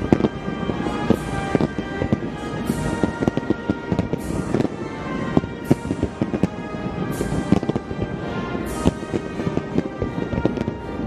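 Aerial fireworks shells bursting one after another with sharp bangs and crackle, over background music with sustained tones.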